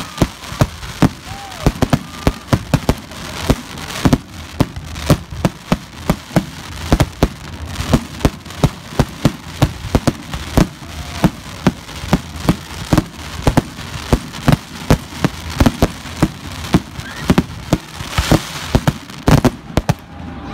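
Fireworks going off: aerial shells bursting in a quick, irregular run of sharp bangs and pops, a few each second.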